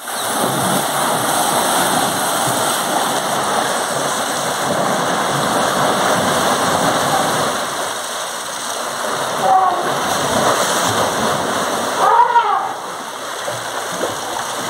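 Water from a hose spraying onto an elephant's back and splashing into its bathing tank: a steady loud hiss of spray and falling water. A couple of short calls cut through it about ten and twelve seconds in.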